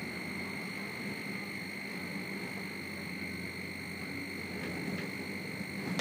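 Crane cab's high-wind alarm buzzer sounding as one continuous high-pitched tone, set off by wind above 21 m/s, over a low rumble of storm wind.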